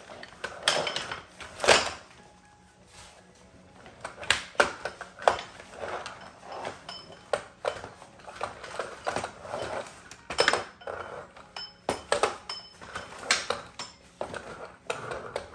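Folding baby play yard's frame being set up: a series of sharp clacks and clinks from its rails and plastic joints as they are lifted and locked into place, with the fabric rustling between them.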